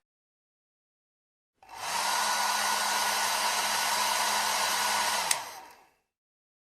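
Hair dryer switched on after about a second and a half of silence, running steadily as a rush of air with a low motor hum and a faint whine. About five seconds in it is switched off with a click and winds down within a second.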